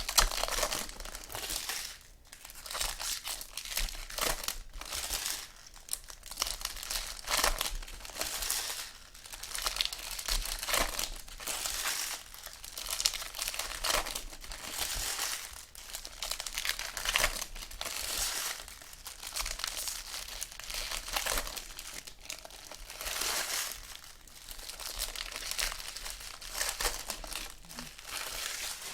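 Trading-card pack wrappers being crinkled and torn open by hand, a long run of irregular crackling rustles.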